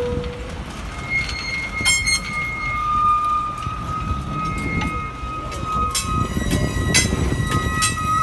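Steel passenger coaches rolling slowly past: a low rumble from the wheels and trucks, with a steady high wheel squeal setting in about a second in and sharp clicks of the wheels over the rail joints several times.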